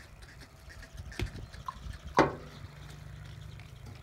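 Hooves of a young bull knocking on the metal deck of a livestock weighing scale: two sharp knocks about a second apart, the second louder. A low steady hum follows.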